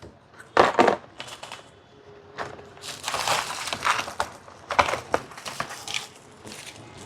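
A mechanical keyboard's cardboard box being opened and its packaging handled. There is a sharp knock about half a second in, then irregular rustling and scraping of cardboard and wrapping.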